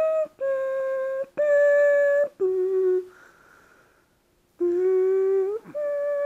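A person hums a slow tune in held notes of about a second each, with a pause of about a second and a half midway.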